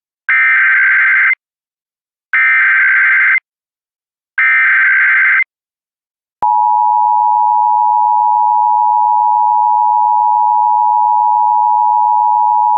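Emergency Alert System SAME header: three identical one-second bursts of digital data tones a second apart, then, about six seconds in, the steady dual-tone EAS attention signal begins and holds. Together they open an alert broadcast, here the AMBER Alert cancellation message.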